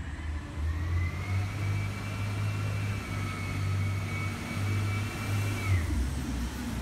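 Garbage truck's engine running with a low, steady hum, along with a high whine that rises slightly about a second in and drops away near the end.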